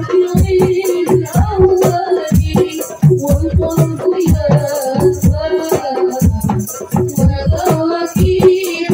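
A woman singing sholawat into a microphone over hadroh percussion: low hand-drum strokes and sharp slaps on frame drums in a brisk, steady rhythm, with the melody bending and ornamented.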